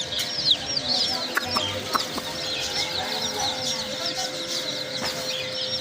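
A group of baby chicks peeping, many short, high chirps overlapping with no let-up.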